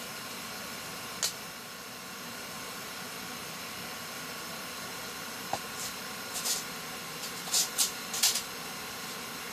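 Steady hiss of a heater running inside an ice-fishing shelter. There are a few brief, sharp rustles or clicks, one about a second in and a quick cluster near the end.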